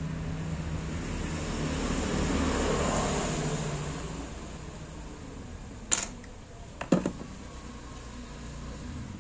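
Two sharp clicks about a second apart, near the middle, from the pliers and the blender's plastic switch block being handled over a wooden bench. Under them a low steady hum swells and fades in the first few seconds.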